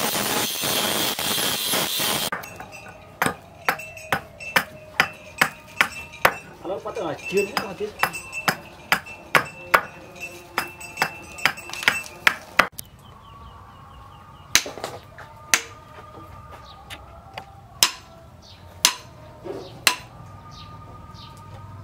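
Angle grinder with an abrasive disc grinding a steel chisel blade, cutting off about two seconds in. Then a long run of sharp chopping strikes on wood, about two a second, as a handle is shaped by hand. Near the end come a few separate, widely spaced knocks.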